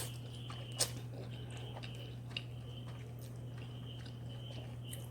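A person chewing and slurping spicy instant noodles, with soft mouth clicks and a sharper click about a second in. Under it runs a steady low hum and a faint high tone that comes and goes.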